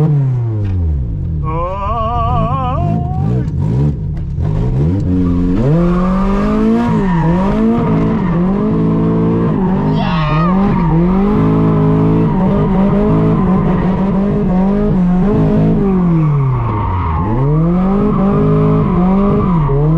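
A 1980s Toyota Corolla's four-cylinder engine revving hard and dropping back again and again as the car is thrown around a tight cone course. A wavering tyre squeal comes in about two seconds in, and a shorter squeal about halfway through.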